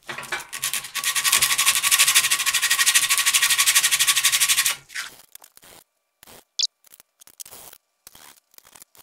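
Junior hacksaw cutting into a small elder-wood whistle, in quick short rasping strokes that stop about five seconds in, followed by faint handling sounds.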